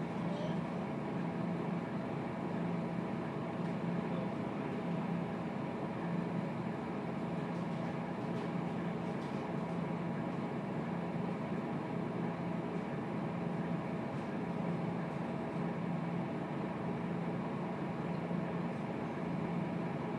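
Scania K230UB bus's rear-mounted diesel engine idling steadily while the bus waits in traffic, heard from inside the passenger cabin as a constant low hum.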